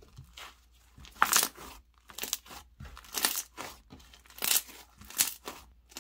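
Thick, creamy clay slime being stretched and squeezed by hand, giving a series of short pops and crackles about every half second as its air bubbles burst.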